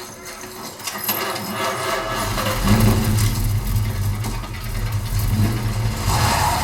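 Car engine from a film soundtrack running, with a deep low rumble coming in about two seconds in and holding steady. It is played back through a home theater speaker system with subwoofers and heard in the room.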